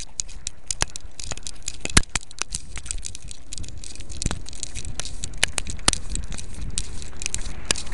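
Collar-mounted webcam rattling and rubbing against the dog's collar as the dog moves, an irregular run of sharp clicks and crackles, several a second, over a low rumble of handling noise.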